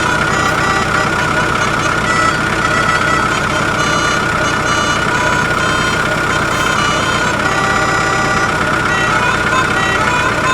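Electronic sound effects from a battery-powered toy truck: a steady engine-like hum with many short beeping notes over it.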